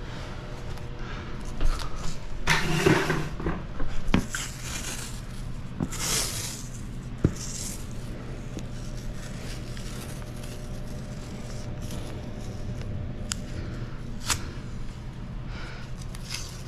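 Masking tape and plastic sheeting being handled during masking: a few bursts of rustling and scraping in the first seven seconds, then several sharp clicks, over a steady low hum.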